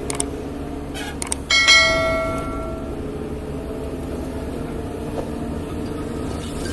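Subscribe-button animation sound effect: a few quick mouse clicks, then a single bell ding at about a second and a half in that rings out for about a second. A low steady music bed runs underneath.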